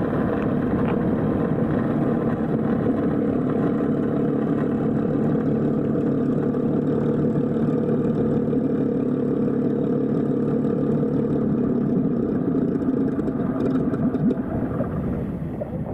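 Hacker A60-16L electric motor and propeller of a large RC Hawker Hurricane model running steadily at taxi power, dying away at the very end as the propeller stops.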